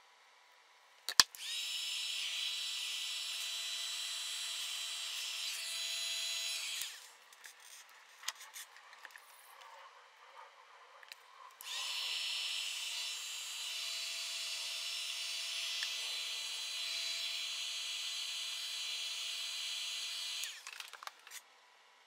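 Handheld electric heat gun running, a steady fan hiss with a thin whine, as it shrinks heat-shrink tubing over soldered bullet connectors. It starts after a sharp click about a second in, runs about six seconds, stops, then runs again for about nine seconds before cutting off, with a few light handling clicks in the pause.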